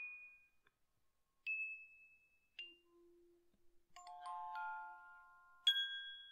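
Slow, sparse background music of single bell-like struck notes, each ringing out and fading. There is a small cluster of notes about four seconds in, and a loud high note near the end.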